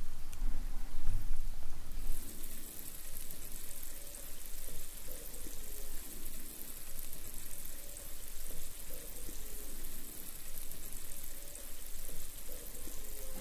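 Electrolysis bath fizzing as fine gas bubbles stream off a coin held in an alligator clip under water, a sign that current is flowing and the cleaning is under way. The fizzing hiss grows stronger about two seconds in, over a steady low hum.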